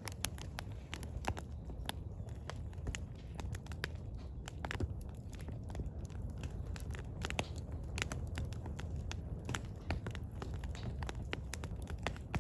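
Firewood burning: irregular sharp crackles and pops, several a second, over a low steady rumble.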